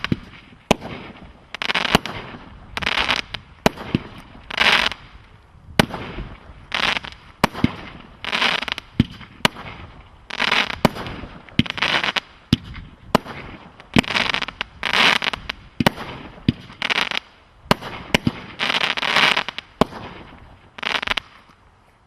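36-shot firework cake firing a steady barrage, about one shot a second, each a sharp crack followed by a noisy burst of under a second. The last shot bursts shortly before the end and the sound then dies away.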